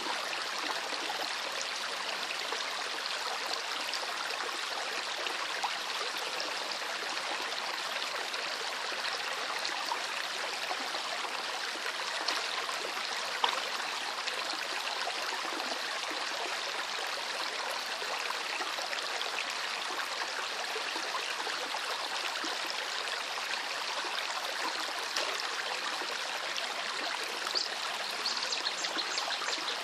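Small river running steadily over stones, a continuous rush of flowing water with little splashes and trickles.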